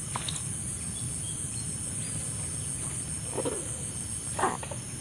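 Steady high-pitched chorus of insects chirring, over a low rumble, with two short sounds about three and a half and four and a half seconds in.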